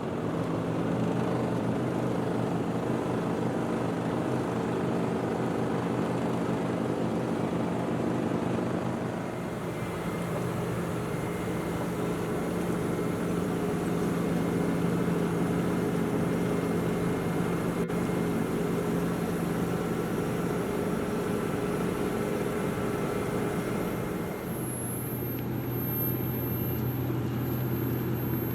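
Heavy asphalt-paving machinery running steadily: a deep, even engine hum. The note shifts about a third of the way in and again near the end.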